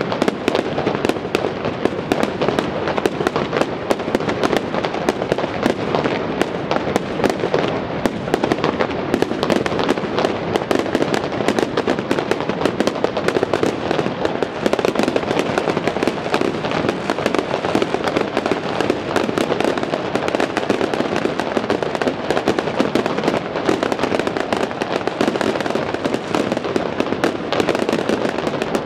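Fireworks display going off continuously, a dense barrage of overlapping bangs and crackling shell bursts with no break.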